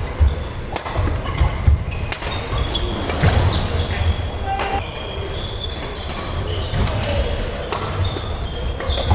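Badminton rally: repeated sharp racket hits on the shuttlecock, short squeaks of court shoes on the sports floor, and footfalls, in a large sports hall.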